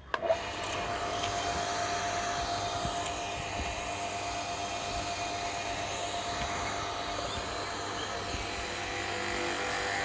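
StarQ W3 portable electric pressure washer switched on and running steadily, its motor and pump driving water out through the spray gun. The machine is under repair for low output pressure.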